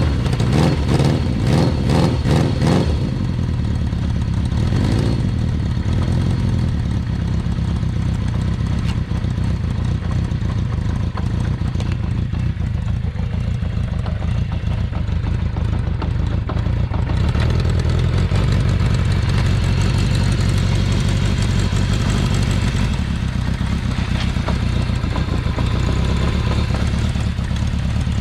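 Kawasaki Z500FX air-cooled inline-four engine just after starting: blipped several times in the first three seconds and once more about five seconds in, then settling into a steady idle. It runs evenly, with no abnormal noises.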